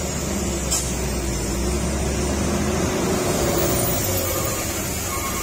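Diesel engine of a Hino FM 260 JW truck loaded with an excavator, running as the truck moves past close by: a steady low rumble with a hum above it, easing about three seconds in.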